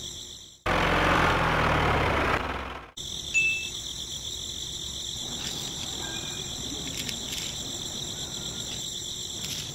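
Steady high-pitched insect chorus trilling in the background. About half a second in it is cut for two seconds by a louder rushing noise with a low hum, then resumes, with a brief faint chirp a little after.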